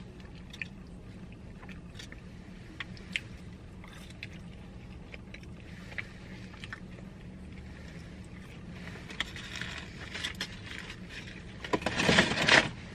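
Quiet chewing with small mouth clicks over a steady low hum inside a car, then a short loud rustle of fast-food paper packaging near the end.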